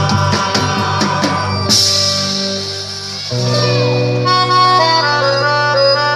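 Festa junina forró song with accordion: quick percussion for the first second and a half, a bright crash, then held accordion notes over a steady bass.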